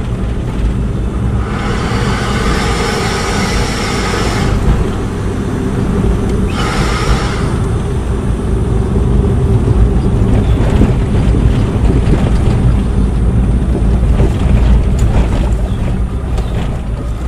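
Vehicle engine running with a steady low rumble at slow speed in heavy traffic on a narrow road. Two rushes of hissing noise come over it, one from about a second and a half to four and a half seconds in, a shorter one around seven seconds in.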